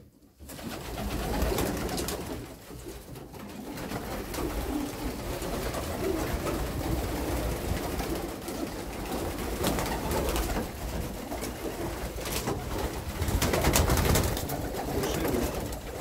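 Several domestic pigeons cooing in an enclosed loft, with scattered short clicks and rustles and a low rumble underneath.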